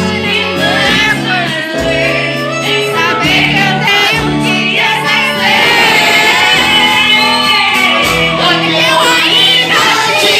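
Live band music with a singer's voice over it and a steady bass line, loud throughout.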